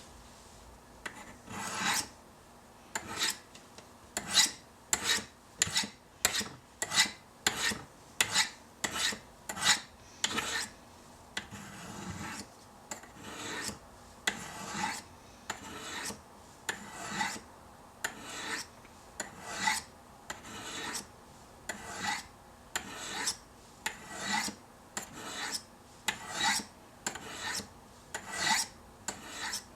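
Knife blade stroked down the angled edges of a Spyderco Sharpmaker's ceramic rods, one short scraping rasp per pass, roughly one a second, with a brief pause partway through. This is a quick edge touch-up of a Chris Reeve Sebenza on the standard stones at the 40-degree setting.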